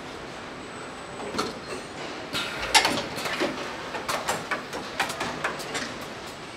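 Car body-shop assembly line: a steady factory hum with a run of sharp metallic clacks and short hisses from the body jig and handheld tool. The loudest clack comes about three seconds in.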